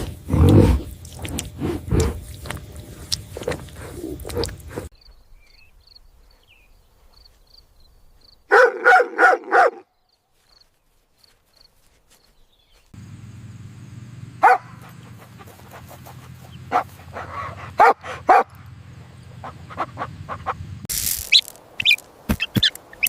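Short animal recordings cut one after another, with dog-like barks: a quick run of about five barks in the middle, and later a few more sharp barks over a steady low hum.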